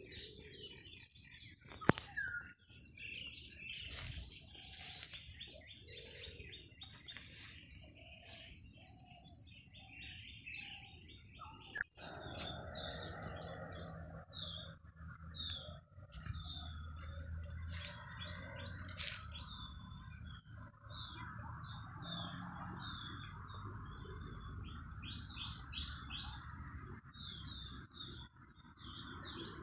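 Small birds chirping and calling in many short notes over a faint outdoor background, with one sharp click about two seconds in. The background changes abruptly about twelve seconds in.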